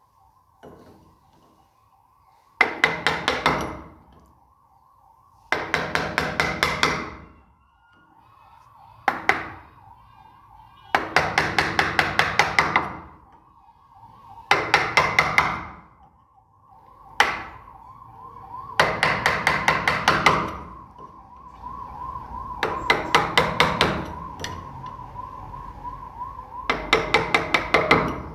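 Hammer tapping a steel rod punch into carved wood, in about nine bursts of quick strikes, roughly six a second, each burst lasting one to two seconds. A faint wavering whine runs underneath.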